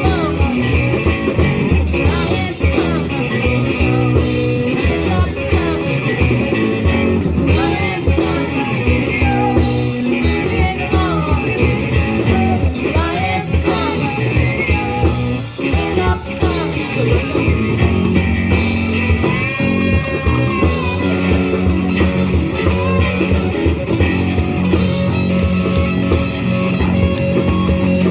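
Rock band playing an instrumental passage with an electric guitar lead over the full band.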